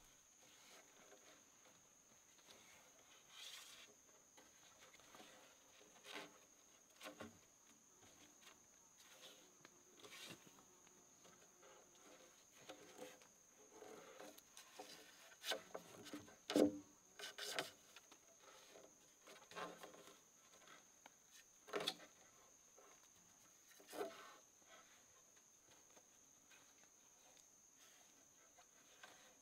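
Steady high-pitched insect trill, with scattered soft clicks and knocks, the loudest about sixteen seconds in.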